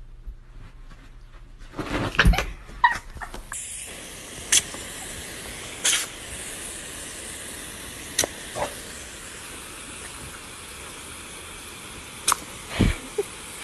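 Steady hiss of water spraying from a garden hose nozzle, starting about three and a half seconds in, with a few short sharp clicks and knocks over it. Before it, a cluster of loud bumps about two seconds in.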